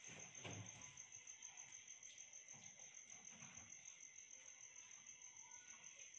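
Faint, near-silent room sound with a cricket trilling steadily in the background, a high, rapidly pulsing tone. A soft low thump comes about half a second in.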